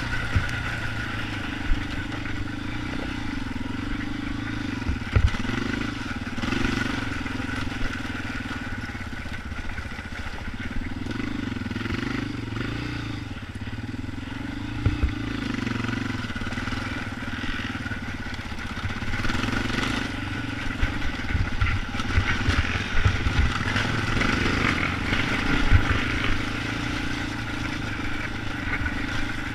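Yamaha Raptor 250 ATV's single-cylinder four-stroke engine running under changing throttle, its pitch rising and falling, with occasional sharp knocks.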